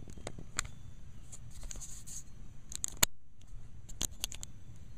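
Handling noise: scattered sharp clicks and taps, the loudest about three seconds in, over a steady low rumble.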